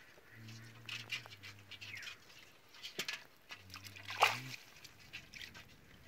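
A wet fishing net and the weeds and mud caught in it being picked over by hand: scattered clicks, crackles and wet rustles, the sharpest about four seconds in. A low, steady drone comes in twice, each time for one to two seconds.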